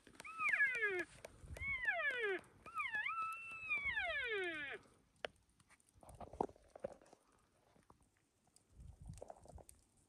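Three cow-elk mews in the first half, each a high call that slides down in pitch, the third the longest, followed by a few faint rustles.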